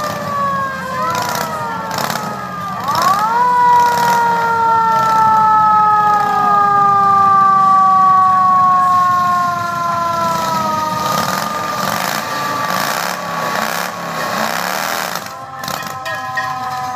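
A siren winding up and coasting down. It gives a few short rising whoops, then a long wail that rises quickly about three seconds in and falls slowly over about eight seconds, with a fresh rise near the end. A low engine hum runs underneath.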